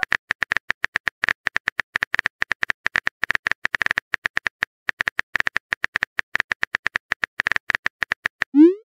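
Rapid, irregular phone-keyboard typing clicks, the simulated typing sound of a chat-story app, about eight to ten clicks a second. Right at the end a short rising swoop begins: the app's message-sent tone.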